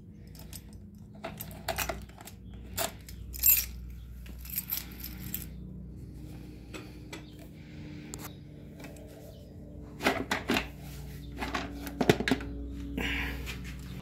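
Clicks, knocks and rattles of an e-bike's down-tube battery pack being unlatched and slid out of its frame mount, the plastic casing clattering as it is handled.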